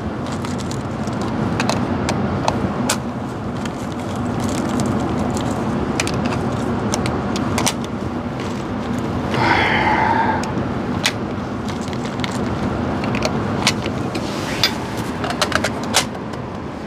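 Steady hum of indoor range ventilation, with scattered clicks and plastic rustling as loose rifle cartridges are handled from a plastic bag. A short high tone sounds about halfway through, and a quick run of clicks comes near the end.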